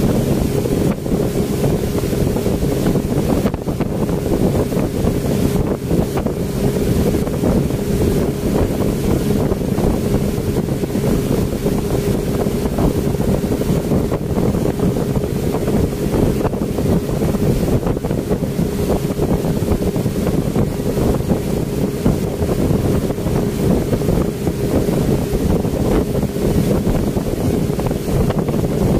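Speedboat engine running steadily at cruising speed, a constant-pitch drone, with wind buffeting the microphone and water rushing past the hull.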